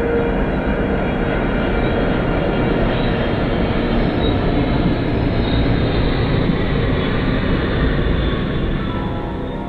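Twin-engine jet airliner passing low overhead: a loud, steady rush of jet engine noise that eases off near the end as soft ambient music comes in.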